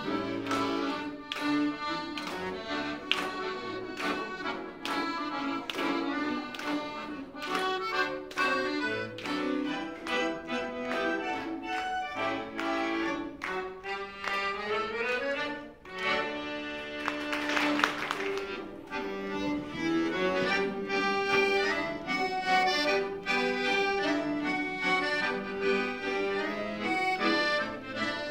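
Excelsior piano accordion playing a lively tune in quick notes. About halfway through, a rising run leads into a loud, full passage.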